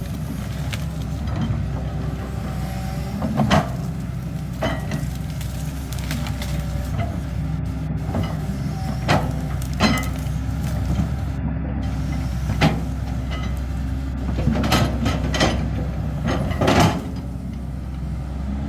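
CAT 320D hydraulic excavator's diesel engine running steadily while the machine works, with sharp knocks and clanks scattered through it, about ten in all.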